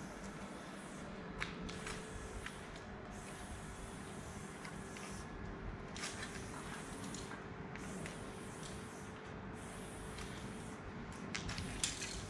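Aerosol spray-paint can hissing in a string of bursts, each a second or two long, broken by short pauses, as a graffiti outline is sprayed on a wall. A few sharp clicks come in between, the loudest near the end.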